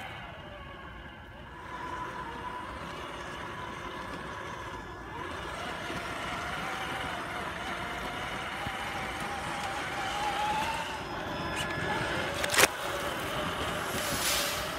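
Traxxas TRX-4 RC crawler's electric motor and gears whining as it drives, the pitch wandering and slowly rising with throttle. A single sharp click comes near the end.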